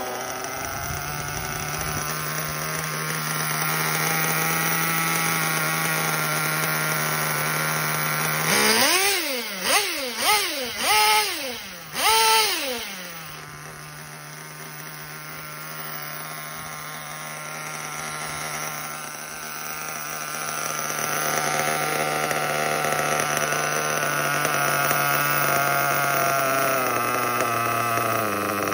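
Kyosho KE21 nitro glow engine in a 1/8 buggy idling steadily, blipped four times in quick succession about nine to thirteen seconds in, then settling back to idle. Near the end the idle speed steps slightly lower as the carburettor's idle screw is turned during tuning.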